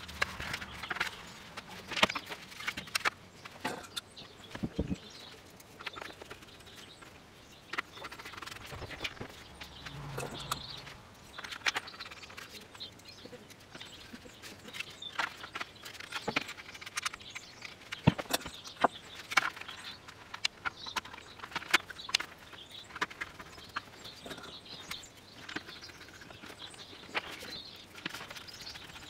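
Scattered light clicks and taps of hard plastic helmet parts being handled and refitted to an Airoh GP550S motorcycle helmet with a screwdriver.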